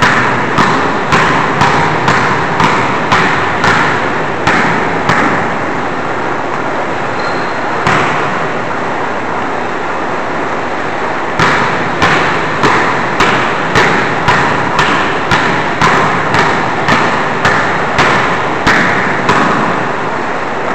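Two basketballs dribbled on a hardwood gym floor, about two echoing bounces a second. The dribbling stops for about six seconds midway, apart from a single bounce, then picks up again at the same pace.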